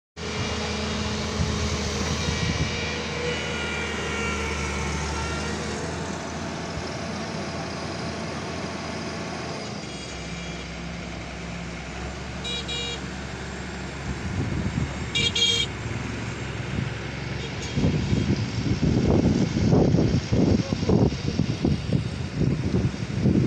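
Diesel engine of heavy construction machinery running steadily, with two short horn toots about twelve and fifteen seconds in. In the last several seconds, wind gusts buffet the microphone.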